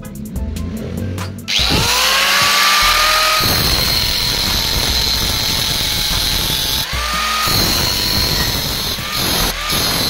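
Angle grinder with an abrasive cut-off disc starting about a second and a half in, its whine rising as it spins up, then cutting into a steel bar with a loud, steady grinding. The motor's pitch sags and recovers briefly a few times as the disc is pressed into the cut. Background music plays before it starts.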